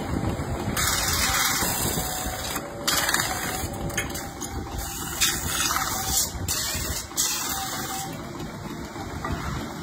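Belt-driven lathe running with a steady rumble while a hand-held cutting tool is pressed against a spinning aluminium pot, turning it down. The cutting gives a harsh scraping hiss in three spells, the last and longest in the second half.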